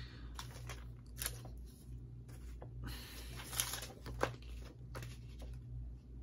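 A paper DVD insert and plastic DVD case being handled: light rustling and crinkling of paper with a few short, sharp rustles and taps, the loudest near the middle.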